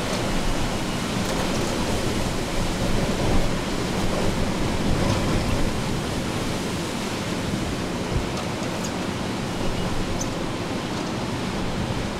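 Hurricane wind and rain blowing steadily, a dense rushing noise that swells in gusts during the first half.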